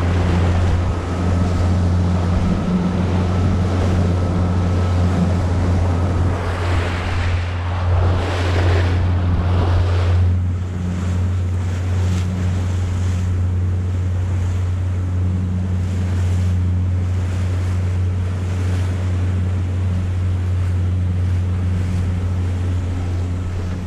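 Boat engine running steadily at speed, a low even hum, under the rush and splash of water along the hull and wind on the microphone. Louder surges of spray come about seven and nine seconds in.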